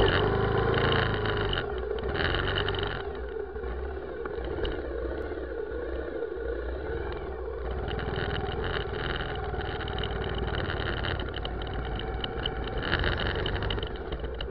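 Vehicle engine running steadily with traffic noise, swelling louder about two seconds in and again near the end.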